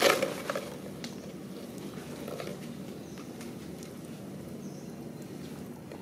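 A clear plastic cup clatters on concrete as a baby macaque grabs and knocks it: one sharp clack at the start and a couple of lighter taps about half a second later. After that only a low, steady background with faint ticks.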